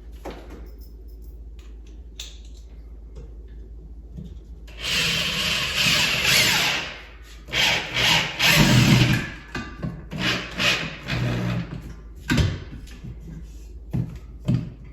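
A screw being driven into wood with a power drill, in several bursts with short pauses. The bursts start about five seconds in and stop about twelve seconds in.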